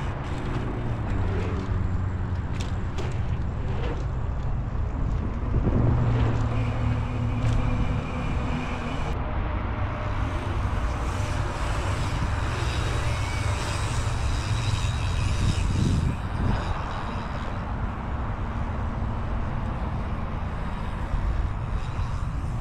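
Wind buffeting the microphone over the rumble of mountain bike tyres rolling on the paved pump track's asphalt. A faint hum comes and goes now and then.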